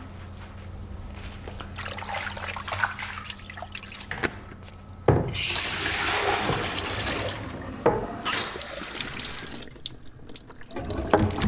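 Bathroom tap running into a plastic basin in the sink, with a couple of knocks as the basin is handled. Near the end the flow stops and only drips fall from the spout.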